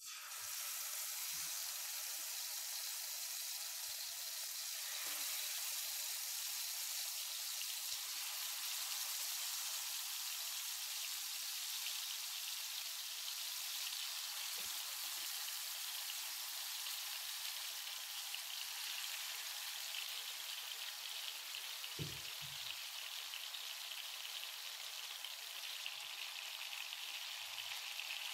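Marinated chicken drumsticks sizzling steadily in hot oil in a frying pan, with a faint knock late on.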